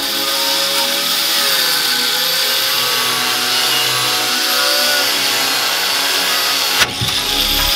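Angle grinder with a cut-off wheel cutting through the steel mount of a Tatra truck's flatbed, its whine wavering in pitch as the wheel loads and frees up. A sharp click and brief drop in the sound come near the end.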